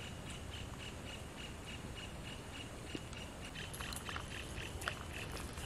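Natural ambience with birds chirping: a faint high chirp repeating about four times a second for the first few seconds, then short scattered bird chirps near the end, over a steady low rumble.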